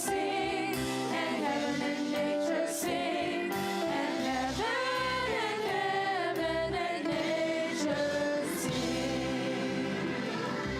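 Gospel-style singing by a group of voices over sustained instrumental accompaniment. The singing thins out near the end, leaving the held accompaniment chords.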